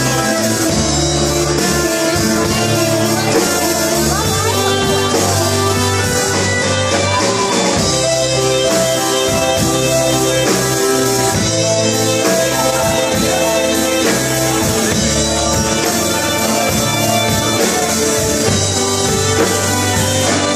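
Live band playing a song: acoustic guitar, electric bass, keyboard and drum kit, with singing over them.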